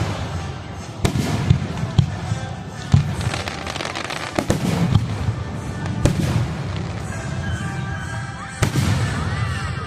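Fireworks going off: a series of sharp bangs, roughly one a second and unevenly spaced, over continuous crackling.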